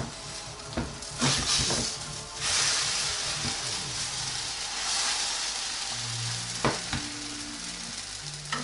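Pancake batter sizzling in a hot buttered frying pan as it is flipped with a spatula, with a few clicks of the spatula against the pan. The sizzle surges loudly a little over a second in, as the raw side hits the pan, then dies back down after about five seconds.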